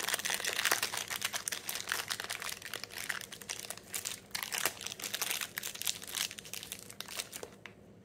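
Thin clear plastic wrapping crinkling as it is pulled off a new sealed ball bearing. It is a dense run of crackles that dies away shortly before the end.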